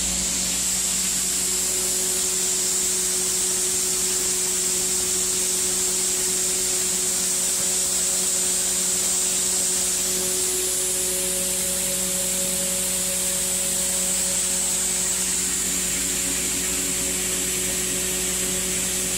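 International 1150 grinder-mixer running, its PTO-driven hammermill grinding shelled corn as an auger pours the grain into the hopper: a steady whirring hiss over a low steady hum.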